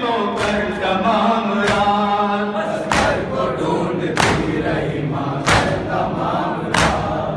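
Men chanting a nauha, a Muharram lament, in unison, kept in time by matam: hands slapping chests together about once every 1.25 seconds, six strokes in all. The chant voices are clearest in the first few seconds.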